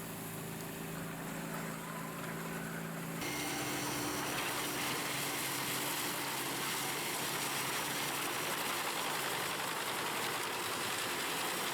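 A large industrial drum wood chipper running steadily. About three seconds in, the sound switches abruptly from an even engine hum to a louder, noisier machine rush.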